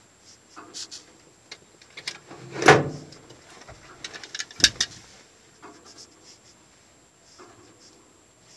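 Scattered clicks and knocks from a flip phone being keyed and raised to the ear in a pickup's cab, with a louder knock near three seconds and a sharp click near five seconds.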